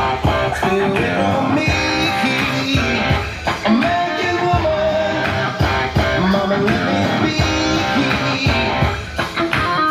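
Rock music led by guitar, playing steadily at full level.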